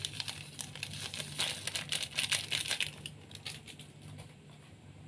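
Plastic sachet of stock powder crinkling as it is handled and opened: a flurry of crackles over the first three seconds, then quieter.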